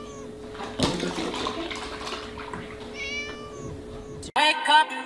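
A kitten gives a single high-pitched meow about three seconds in, after a knock about a second in, while milk pours from a tipped carton into a plastic tub. Music starts abruptly near the end.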